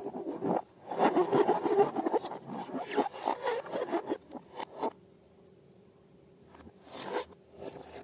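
Slime being squished and worked by hand, a wet crackling, scraping sound in close-miked bursts: dense for the first five seconds, then a pause, then two short squishes near the end.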